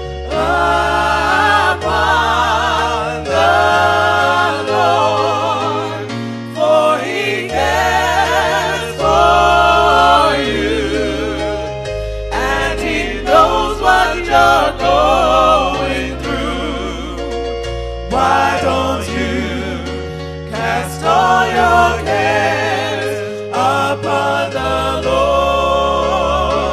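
Gospel music: singing with strong vibrato over sustained chords and steady bass notes.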